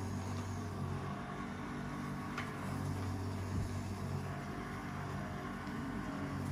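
A steady low mechanical hum, like a motor running, with a faint tick about two and a half seconds in.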